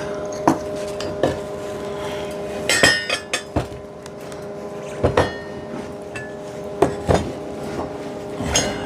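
Metal being knocked and handled: a handful of sharp clanks spread unevenly, each ringing briefly, over a steady electrical hum.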